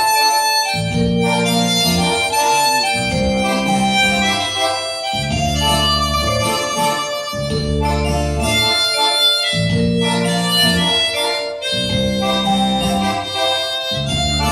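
Harmonica playing a melody of held notes over a low accompaniment that pulses in blocks about every two seconds.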